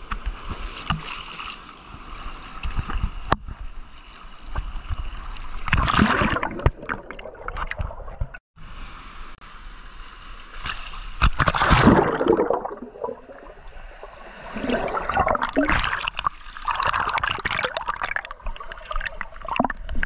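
Sea water sloshing and gurgling right against a waterproof action camera held at the waterline, in several uneven surges, the loudest a little past the middle. The sound cuts out for a moment before the middle.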